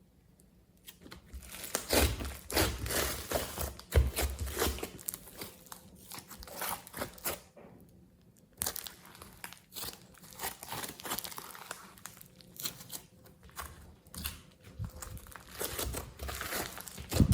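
Glossy slime being kneaded and stretched by hand: dense, irregular sticky crackles, clicks and squelches, starting about a second in, with a short lull about halfway through.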